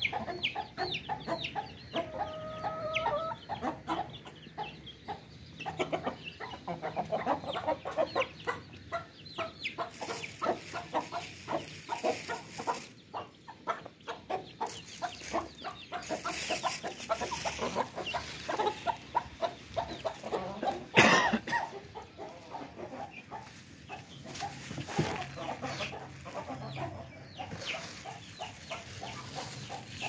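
A flock of Aseel and Thai game chickens clucking continually in short, quick calls, with one drawn-out call about two seconds in. A single sharp, loud knock about two-thirds of the way through.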